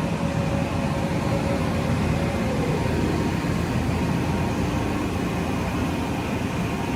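Steady mechanical hum of an Okuma Macturn 550-W CNC turning/milling center running under power. A whine in the hum slides down and fades about three seconds in.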